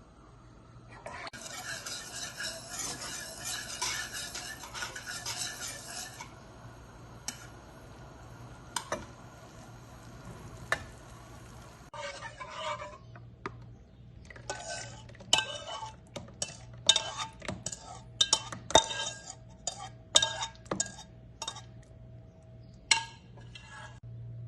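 A utensil stirring and scraping food in a pan, followed by a run of sharp clinks and taps of the utensil against the pan.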